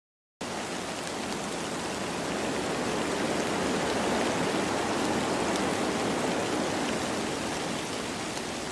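Steady rain falling, an even hiss with faint scattered drop ticks, cutting in suddenly about half a second in.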